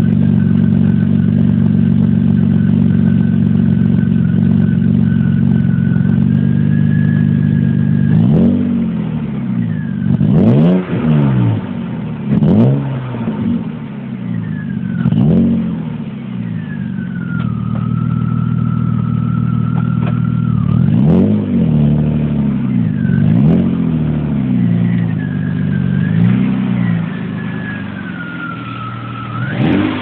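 BMW E36 M3's straight-six engine idling with a steady high-pitched whistle over it, then blipped about six times, the whistle's pitch shifting with the revs. It is the unexplained whistle or whine that the car is being checked for.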